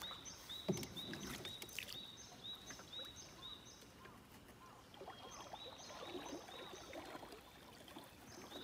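Quiet wooden canoe paddle strokes in lake water: soft swishes and drips with the blade making little sound, and one light knock a little under a second in. A high chirp repeats about two to three times a second over it.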